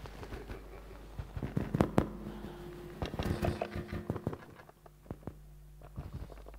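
Paper handling at a lectern: a run of sharp clicks and crackles as pages are shuffled and turned, loudest about two seconds in and again in a busy patch around three to four seconds, then tailing off.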